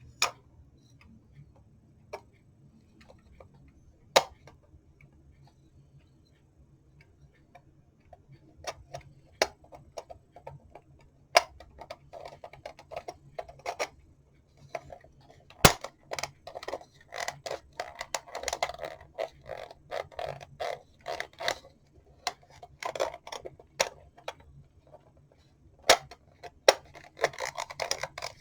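Clock parts being handled and fitted together: a few sharp clicks and knocks, then busier irregular clicking, rattling and scraping from about eight seconds in.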